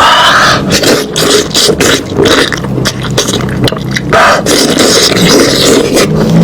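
A person eating lamb, chewing loudly close to the microphone, with many quick wet clicks and smacks of the mouth.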